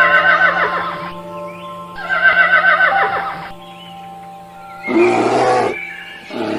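A horse whinnying twice, each call over a second long and quavering, followed by a short noisy burst about five seconds in, over background music.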